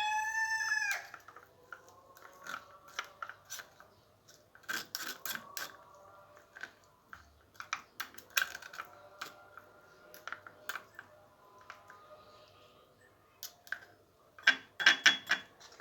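A rooster's crow ends about a second in. Then come irregular light clicks and taps as the garlic, lemon and honey mixture is strained and pressed through a strainer, with a quicker, louder cluster of taps near the end.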